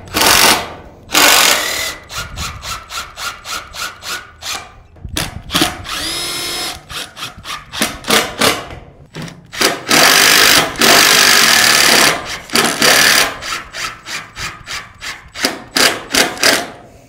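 Cordless drill run in many short trigger bursts, with a few longer runs near the middle where the motor whines up, working at the aluminium door threshold.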